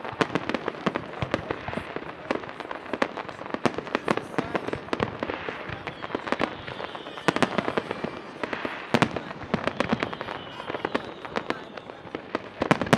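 Fireworks display: aerial shells bursting in a rapid, continuous volley of bangs and crackles. High whistling tones rise above the bangs about halfway through and again near the end.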